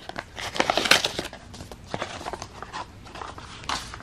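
Paper envelope rustling and crinkling as it is opened and a greeting card is pulled out: a quick flurry of rustles in the first second, then softer scattered ones and a short rustle near the end.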